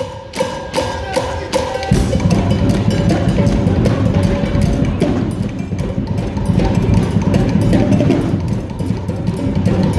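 Music with a steady, driving drum beat. About two seconds in, a heavy bass comes in and the drums fill out.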